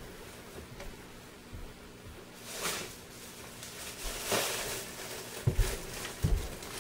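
Someone moving about a kitchen out of sight: rustling and handling noises starting a few seconds in, then a few soft knocks or steps near the end, over a steady low appliance hum.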